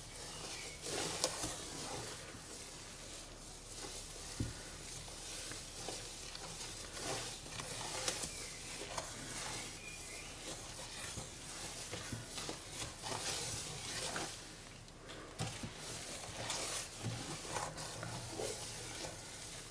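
Wooden spoon stirring dissolved soap and sea salt in a stainless steel pot during salting out: uneven swishing strokes through the liquid, with scattered light knocks of the spoon against the pot.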